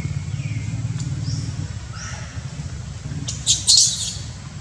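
Baby monkey giving faint, high, sliding squeaks, then a short burst of loud, shrill, harsh screeches about three and a half seconds in. A steady low hum runs underneath.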